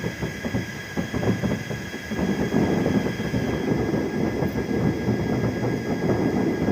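Fireworks going off in quick succession: a run of sharp cracks and pops for about two seconds, then a dense, continuous rumble of overlapping bursts.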